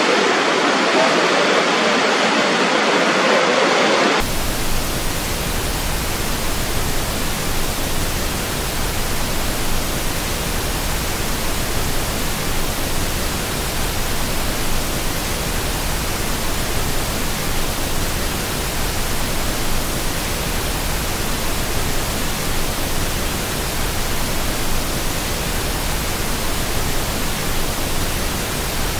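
Water rushing over the brink of Horseshoe Falls as a steady roar, cut off suddenly about four seconds in by a flat, even static-like hiss that carries on unchanged.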